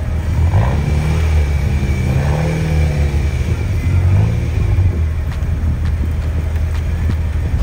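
Off-road 4x4 engine running steadily with a low note. The revs climb and drop a few times in the first few seconds, then settle.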